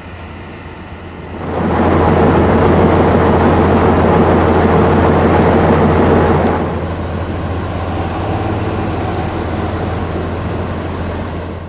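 Diesel train at a station, its engine running with a steady low hum. A much louder rushing noise comes up about a second and a half in and eases back after about six and a half seconds.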